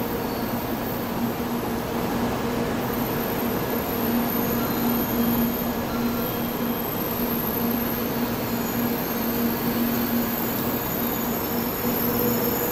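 Shinkansen bullet train running in along the platform and slowing to a stop, a steady rushing of the passing cars under a constant low hum.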